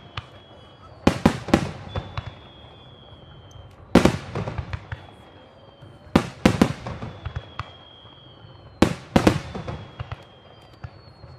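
Professional aerial fireworks shells bursting in four quick volleys of loud bangs, two to four bangs in each, a couple of seconds apart, with crackling between them.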